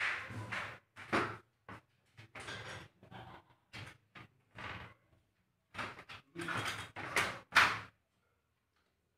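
Glass sliding door panels being pushed along their overhead track: a string of short sliding runs and bumps, the loudest just before it stops about eight seconds in.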